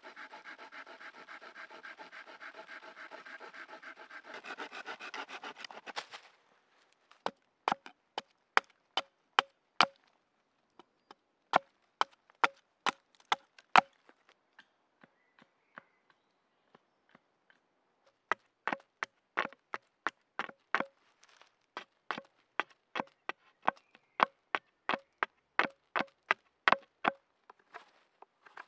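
A small hand saw cutting through a wooden pole in quick strokes for about six seconds. Then a hatchet chops the end of the stick to a point against a wooden stump: sharp woody knocks about two a second, in two runs with a few scattered taps between them.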